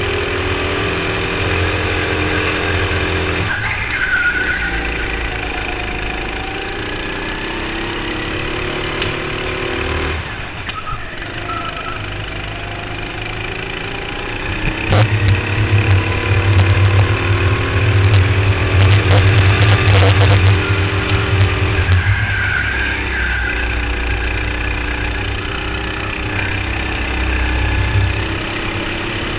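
Go-kart engine heard from on board, running at throttle and rising in pitch along the straights, then dropping off as the kart slows for the corners, three times. About halfway through, a louder low rumble comes in with a few sharp knocks.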